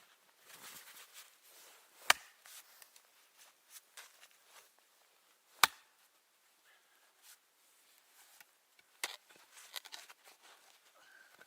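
Three sharp, single strikes about three and a half seconds apart, with quieter rustling and handling sounds between them.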